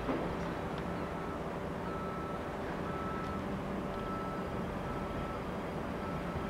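Battery locomotive shunting wagons slowly along the yard track: a steady low rumble with a faint hum. A thin high beep, each about half a second long, repeats about once a second.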